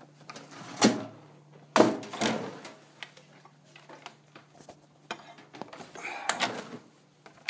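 Knocks and scraping of objects being handled and moved about, with sharp knocks about one and two seconds in and a longer stretch of scraping near the end, over a steady low hum.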